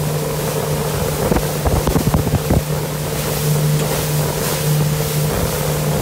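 Mercury Pro XS outboard motor running steadily under way, its drone under a rush of wind and water, with wind buffeting the microphone. A short run of thumps comes in about one and a half to two and a half seconds in.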